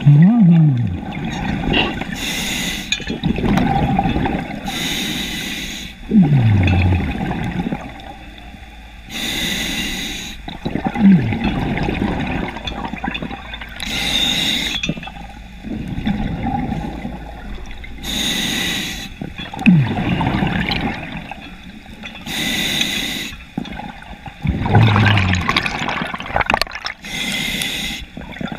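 Scuba diver breathing through a regulator underwater: a short hissing inhale every four to five seconds, each followed by a longer low rush of bubbling exhaust, several of them with a falling gurgle.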